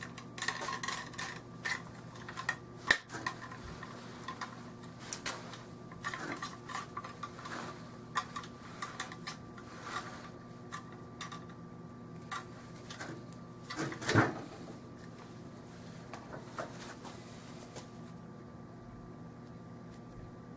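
Metal clicks, knocks and rattles of a rifle being handled with a cleaning rod, scattered and irregular, with a louder clatter about two-thirds of the way through, over a faint steady hum.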